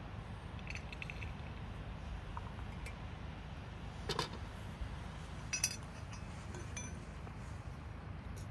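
Clinks and knocks of a metal kettle, a cast-iron teapot and small cups being handled and set down on a stone table. There is a light rattle about a second in, a heavier knock about four seconds in, and a sharp ringing clink about a second and a half later.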